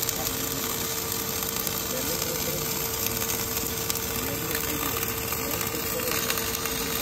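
Wire-fed MIG/MAG welding arc crackling and hissing steadily as an automatic orbital carriage welds a pipe, with a steady hum underneath.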